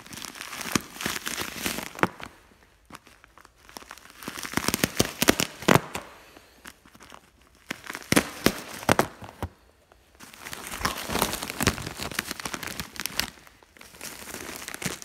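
Plastic wrapping of a compressed bale of large-flake wood shavings being torn open by hand, crinkling and ripping in four bursts with short pauses between.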